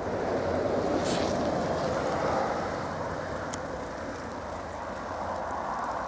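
Steady rushing of blizzard wind mixed with slow traffic on a snow-covered highway, swelling over the first couple of seconds and then easing slightly.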